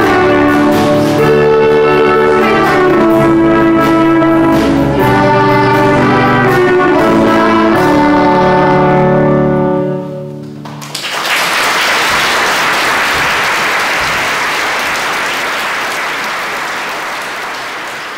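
A children's choir and school orchestra play the closing bars of a song, ending on a long held chord that stops about ten seconds in. Audience applause follows and slowly fades.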